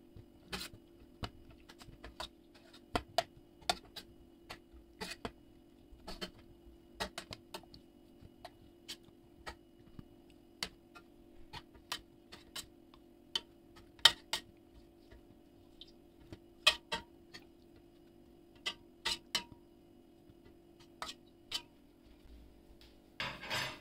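A metal spoon clinking against a stainless steel pot at irregular intervals as strawberries are scooped out of their soaking water, over a faint steady hum.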